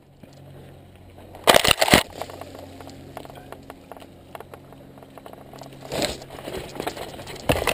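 Mountain bike riding down a rough dirt and rock trail through brush: tyres crunching and the bike rattling. Loud crackling, scraping bursts come about a second and a half in, around six seconds and again near the end.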